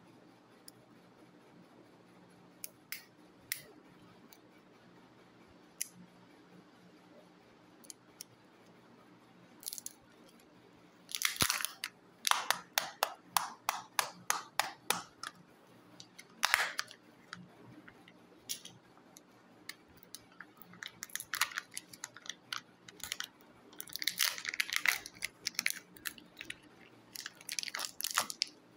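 Plastic shell and foil seal of a Kinder Joy egg crackling and crinkling as it is handled, split and peeled open by hand. It starts with a few scattered clicks, then comes in two dense runs of quick crackles, the first about halfway through and the second in the last third.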